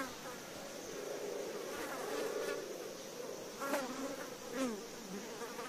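Blowflies buzzing in a steady drone, with a couple of brief swoops in pitch a little past the middle as a fly moves close by.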